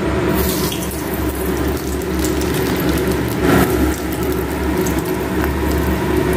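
Potato smileys deep-frying in hot oil in a kadai: a steady, dense sizzle and crackle of bubbling oil, over a low steady hum.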